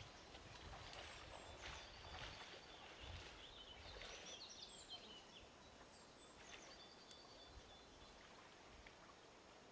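Faint woodland ambience: small birds chirping in short high notes, busiest about four to five seconds in, over a low background hiss.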